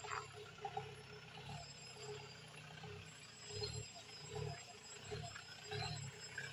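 Mahindra jeep's engine running slowly under load as it crawls down a rutted dirt track, its low note swelling and easing in uneven surges that come more often in the second half.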